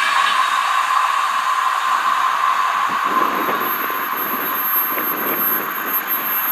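Freight train of empty flat wagons running away down the line: a steady rushing rail noise with a ringing tone that fades out about halfway through. A thin high whine sets in about three seconds in.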